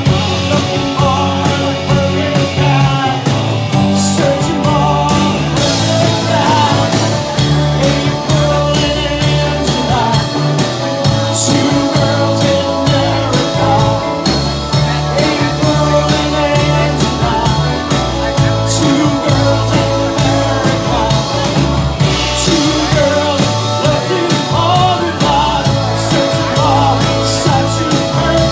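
Live rock band playing: strummed acoustic-electric guitar, electric guitars, bass guitar and drums keeping a steady beat.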